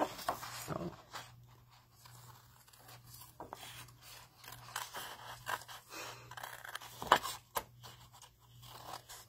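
Small fine-pointed craft scissors snipping through patterned paper in short, irregular cuts, the sharpest snip about seven seconds in, over a steady low hum.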